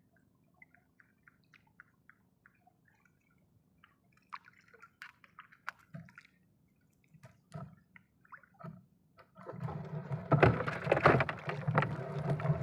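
Water dripping in small scattered drops, then sloshing and splashing more and more, growing loudest over the last three seconds.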